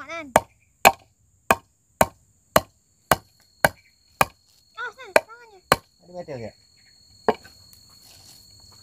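Claw hammer driving a nail into a wooden plank: a run of sharp strikes about two a second, then after a pause around six seconds in, a couple of further strikes.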